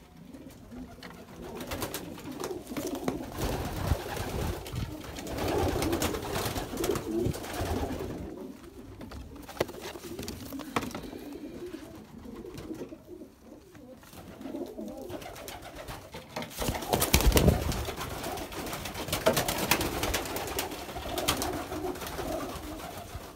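Domestic pigeons cooing in a wooden loft, with wings flapping as birds take off and land.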